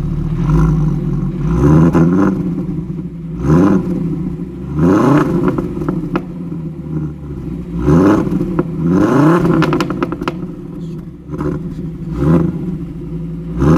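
Turbocharged 2.3-litre VR5 (AGZ) five-cylinder engine with a GT35 turbo, blipped about six times from idle. Each rev rises quickly and falls back.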